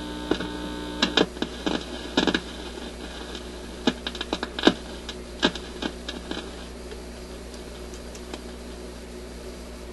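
Irregular clicks and scratches as wire clips are fitted to the terminals of the Admiral record player's new cartridge, over a steady low mains hum from its amplifier; the clicks stop after about six seconds. No signal comes through, and the cartridge is judged bad.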